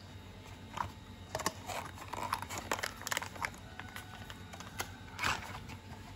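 A cardboard drink box being opened and a sachet taken out: crinkling and crackling of paperboard and packet, in a run of sharp crackles from about one to three and a half seconds in and one more short burst near the end.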